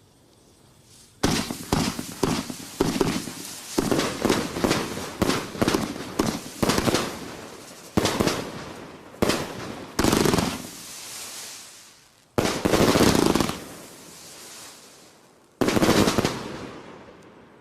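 120-shot 30 mm firework cake firing: a rapid run of sharp bangs and crackling bursts starts about a second in, then thins to a few spaced heavy bursts with crackling tails, the last one dying away near the end.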